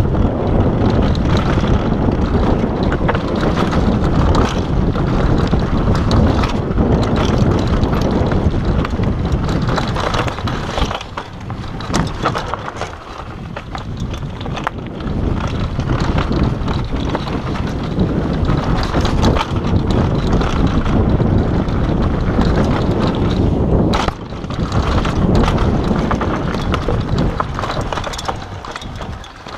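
Wind buffeting an action camera's microphone on a fast downhill mountain-bike run, mixed with the tyres rumbling over a dirt trail and the bike rattling and clattering over bumps. The rush eases for a few seconds about eleven seconds in, then picks up again.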